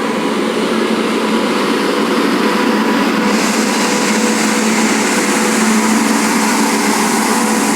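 Train hauled by a WAP 7 electric locomotive running past, a steady loud rolling noise with a low hum. The hiss grows brighter about three seconds in.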